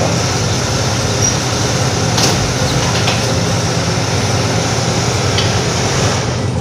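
Handheld electric power tool running steadily as it cuts into a concrete column, with a couple of sharp knocks about two and three seconds in.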